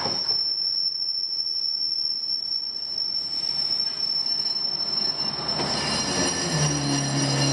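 Red single-car diesel railcar pulling into the platform while braking, with a steady high squeal throughout. Its engine's low hum comes in about six and a half seconds in as the car draws alongside.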